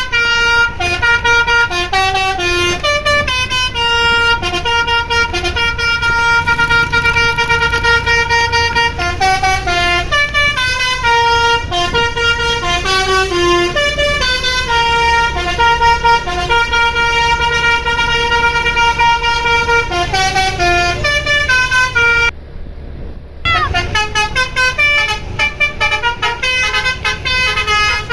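Basuri V3 telolet bus horn playing a tune: a long run of pitched air-horn notes stepping up and down, over the low, steady running of the bus engine. The tune breaks off for about a second some 22 seconds in, then carries on.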